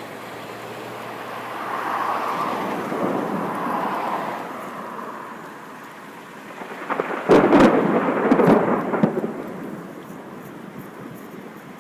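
Thunder: a rolling rumble that swells about two seconds in, then a louder crackling peal about seven seconds in that fades over the next two seconds.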